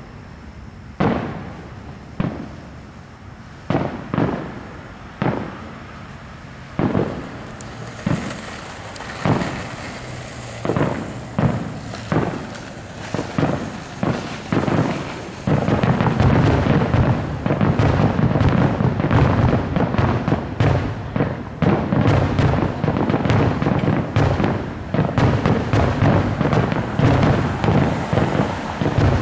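Aerial fireworks display: separate booms of bursting shells about once a second, then, from about halfway through, a dense unbroken barrage of rapid bangs.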